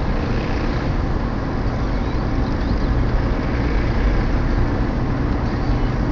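Steady road rumble of a moving car heard from inside the cabin: tyre and wind noise with the engine running underneath.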